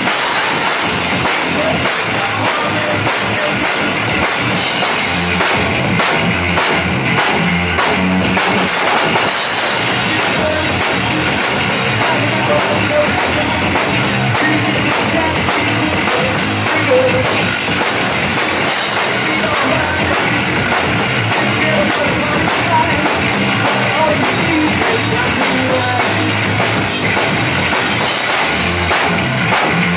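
Rock band playing live and loud: electric bass guitar and drum kit driving a heavy rock song.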